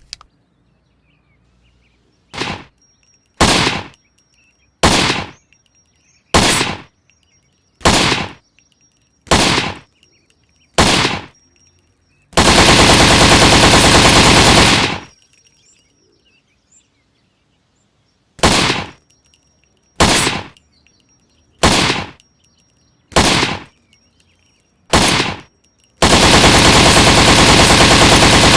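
M16 rifle firing: seven single shots about a second and a half apart, then a sustained automatic burst of about two and a half seconds. Five more single shots at the same spacing follow, then another long automatic burst near the end.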